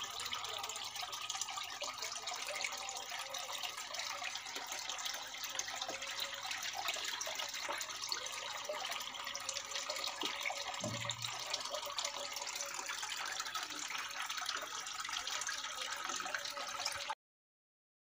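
Water trickling and splashing steadily down the tiers of a small homemade cement tabletop waterfall fountain, circulated by a small submersible pump; it cuts off abruptly near the end.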